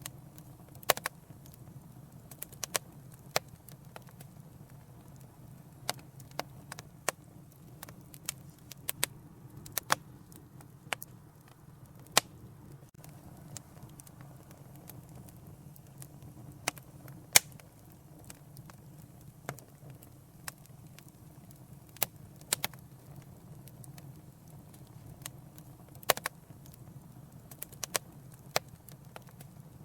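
Wood fire burning in a fireplace: a steady low rumble of flames with irregular sharp crackles and occasional louder pops.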